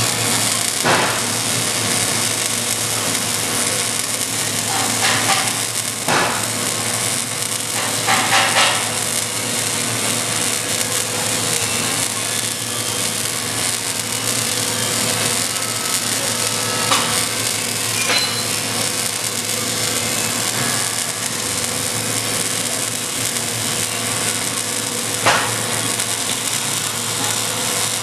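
Electric arc welding: a steady, crackling hiss from the arc while a 4 mm gap is filled with weld, with a few sharper pops scattered through it.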